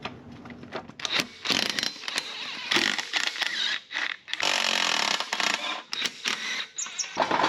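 An impact gun runs in several short bursts, the longest about a second, to loosen a 14 mm exhaust manifold bolt on a Subaru EJ257 engine. Sharp clicks of tool and metal sound between the bursts.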